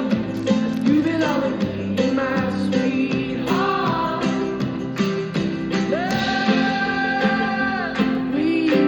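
Background music: a song with singing over guitar, with one long held sung note near the end.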